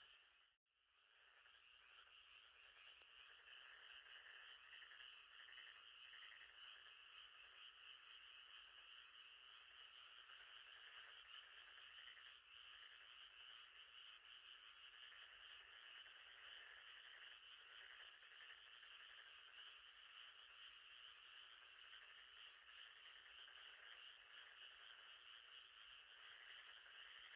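Faint, steady night chorus of frogs calling, a dense pulsing trill, with a brief dropout about half a second in.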